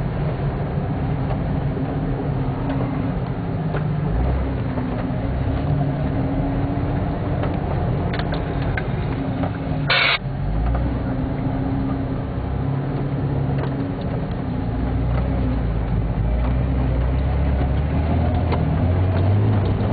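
Four-wheel-drive vehicle's engine running under load while driving over sand, heard from inside the cabin. There is a short sharp noise about halfway through, and the low engine rumble grows louder over the last few seconds.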